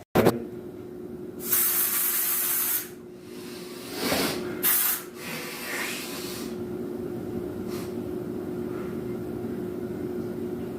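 Aerosol deodorant can spraying: a hiss of a bit over a second about one and a half seconds in, then a second, shorter burst around five seconds in.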